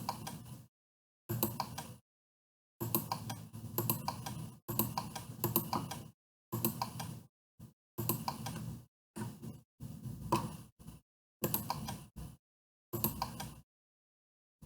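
Computer keyboard typing in short runs of key clicks, separated by stretches of dead silence.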